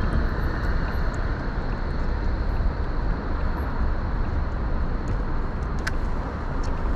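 Wind rushing over a bike-mounted GoPro's microphone while cycling, a steady low rumble, with passing road traffic beneath it; a short click about six seconds in.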